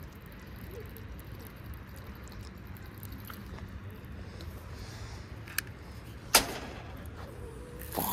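A steady low wind rumble, broken about six seconds in by a single loud, sharp smack: the big-blade chatterbait lure striking something hard on a botched cast. A smaller click comes just before it and a brief noisy burst near the end.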